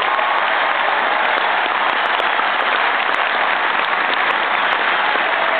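Large arena concert audience applauding, a dense, steady wash of clapping with a few cheers in it, at the end of an orchestral piece.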